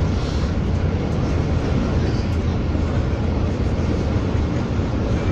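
Steady low rumble of a bus's engine and tyres at highway speed, heard from inside the cabin.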